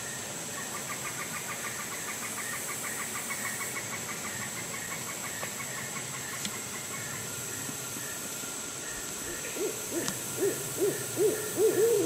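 Barred owl hooting: a run of about seven short, arched hoots in the last two seconds, growing louder. Before them, a long fast trill from another animal and a steady high insect hum run in the background.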